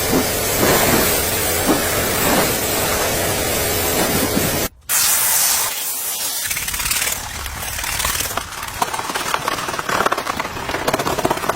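Pressure washer spraying water, a loud steady spray with a short gap nearly five seconds in, after which the spray comes back less even.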